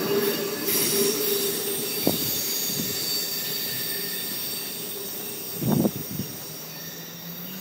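Steel wheels of a passenger train squealing on the curving track as the last car rolls away, the sound fading steadily. About two-thirds of the way through there is a short, louder low bump.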